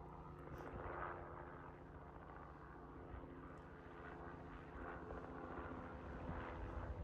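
Distant helicopter in flight: a faint, steady hum of its rotor and engine, made of several held tones.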